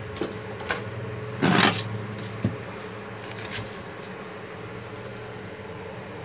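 Clunks and knocks as a heavy Hitachi F-40B electric hand planer is picked up and handled, with the loudest, a short scrape, about a second and a half in. A steady low hum runs underneath.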